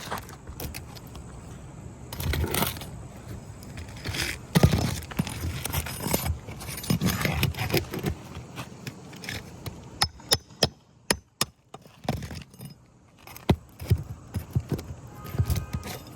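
Asphalt roof shingles being handled and scraped, a gritty, irregular run of rustles and scrapes with sharp clicks, several in quick succession about two-thirds of the way through.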